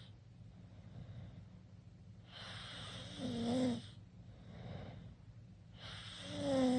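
A teenager snoring with mouth open: two loud snores about three and a half seconds apart. Each is a long, noisy breath that turns into a buzzing, pitched snore near its end, with a shorter, quieter breath between them.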